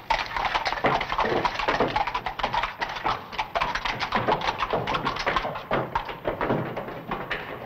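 Hooves of several horses clattering irregularly and densely on stone paving as a mounted party rides past at a walk.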